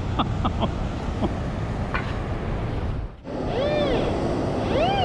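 Wind and surf noise with a few small clicks. About three seconds in, the sound cuts and a White's MX7 metal detector's target tone comes in, gliding up and down in pitch as the coil sweeps over a buried target.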